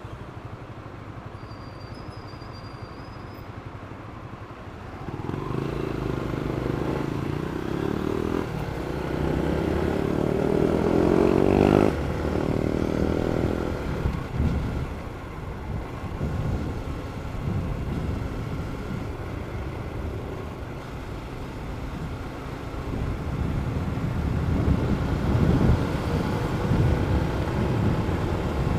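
Yamaha Y15ZR (Jupiter MX King) 150 cc single-cylinder four-stroke engine on its standard exhaust. It runs low and steady at first, then about five seconds in the revs climb steadily for several seconds and drop away sharply, followed by uneven rises and falls in engine speed.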